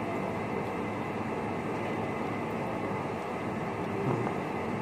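Steady, even background noise with no distinct events, the kind of hiss a running air conditioner or fan makes in a small room.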